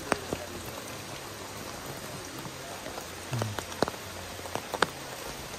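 Steady rain falling, with a few sharp drips close by.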